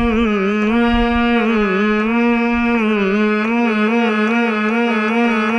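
Harmonium playing the melody of a devotional bhajan, with the singer drawing out a long held note that wavers and dips in pitch every second or so.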